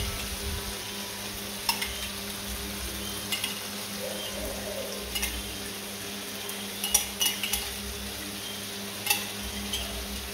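Chopped tomatoes and onions sizzling in a frying pan while tomato sauce is spooned in, with a spoon clinking and scraping against the cup several times.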